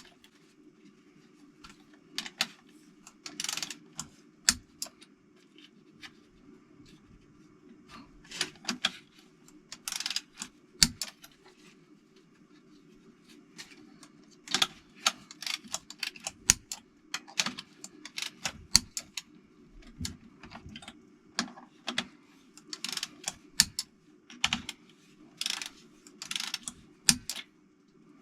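Hand tools clicking and rattling irregularly against the metal parts of a Toyota 4A-GE engine under rebuild, in short separate strokes, over a steady low hum.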